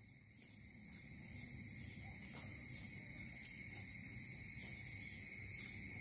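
Crickets chirping in a steady high-pitched chorus that fades in over the first couple of seconds, with a low background rumble.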